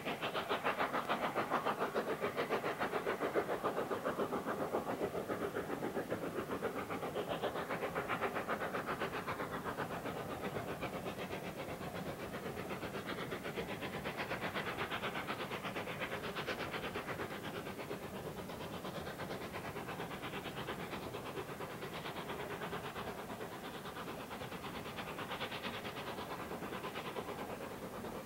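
LNER A4 Pacific No. 4498 'Sir Nigel Gresley', a three-cylinder steam locomotive, working a train with a rapid, even chuffing of exhaust beats heard across the valley. It eases slightly in loudness as it goes.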